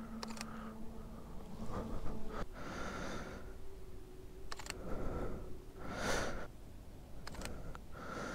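Camera shutter clicking as photos are taken, three quick click pairs a few seconds apart, with soft breaths in between.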